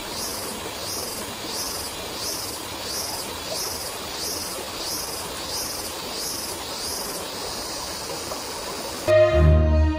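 Insects shrilling in a steady rhythmic pulse, about three pulses every two seconds, over a constant hiss. About nine seconds in, loud background music with brass cuts in suddenly and drowns them out.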